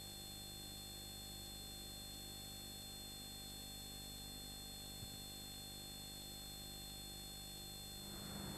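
Faint steady electrical hum and hiss with no other sound, broken by one faint click about five seconds in.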